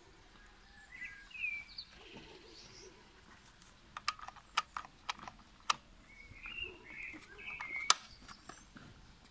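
Birds chirping, with a series of sharp plastic clicks and knocks from a cordless worksite radio's housing being handled, about four seconds in; the loudest click comes near the end.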